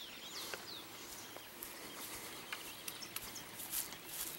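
Birds chirping with a few quick sweeping calls in the first second, over a faint outdoor background with a few scattered light clicks.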